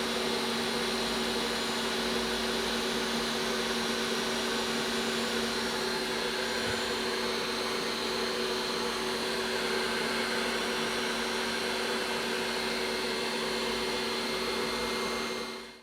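Hot air rework station blowing steadily at low airflow, a constant fan hiss with a steady motor hum, used to heat a soldered chip for removal. It cuts off suddenly at the very end.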